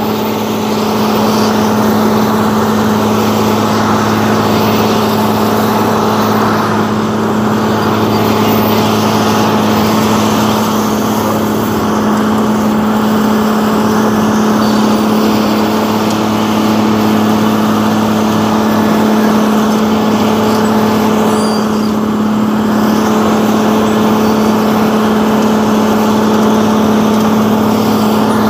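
Asphalt cold planer's diesel engine running steadily, a constant deep hum.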